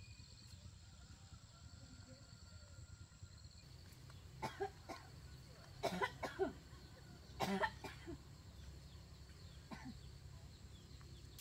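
A person coughing, a series of about six short coughs starting about four seconds in, over a faint steady background hum.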